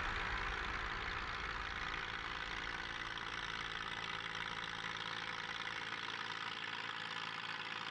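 Tractor engines and a trailed forage harvester running steadily as they cut grass for silage, heard as a low, even hum.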